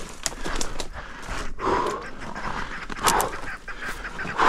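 Heavy breathing of a person climbing a steep rocky slope: a hard exhale about every second and a half, mixed with short clicks and scrapes of boots and gloves on rock.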